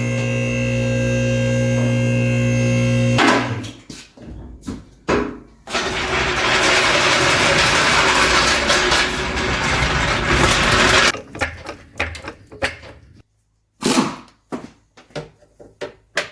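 Power tools at work on a car engine: a motor spinning with a steady hum for about three seconds, then a longer run of even, noisy tool sound, with clicks and clanks of tools and parts in between.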